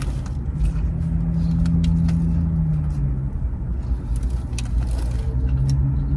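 Steady low rumble of an idling vehicle, with a low hum that fades out about three seconds in and scattered faint clicks of chewing.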